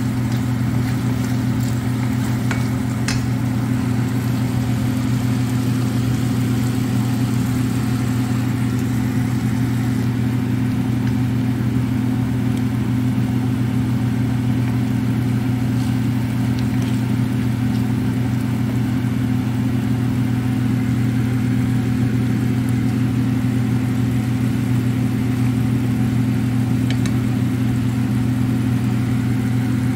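Steady low machine hum, with faint sizzling from a pan of simmering chicken liver adobo and a few light taps of a wooden spoon against the pan.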